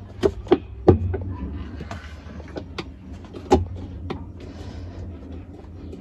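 Flathead screwdriver prying at the plastic upper agitator of a Whirlpool top-load washer: a scatter of sharp plastic clicks and knocks as the piece is worked loose from its clips, over a low steady hum.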